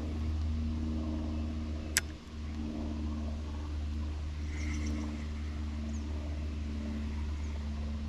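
A steady low engine hum, with one sharp click about two seconds in.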